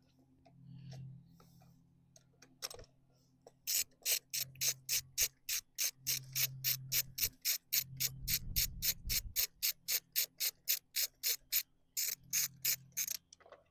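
Hand socket ratchet clicking steadily at about three to four clicks a second as a fastener is loosened, stopping briefly near the end and then clicking a few more times.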